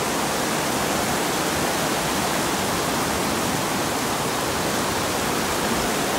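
Small mountain stream running over rocks, a steady, even rush of water.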